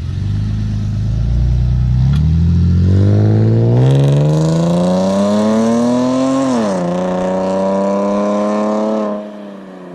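Vehicle engine accelerating: its pitch climbs steadily for several seconds and drops sharply about six and a half seconds in, as at a gear change. It then holds steady and gets much quieter about nine seconds in.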